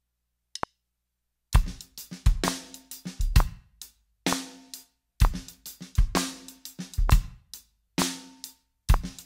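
DW Performance Series drum kit played as a slow shuffle practice groove: shuffled hi-hat, snare on the backbeat, and bass drum, with the right hand and bass drum striking together. The kit comes in about a second and a half in, after a single click that ends the count-in.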